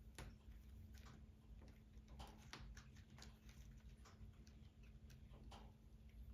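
Faint, irregular crackling and popping of a wood fire burning in a fireplace, over a steady low hum.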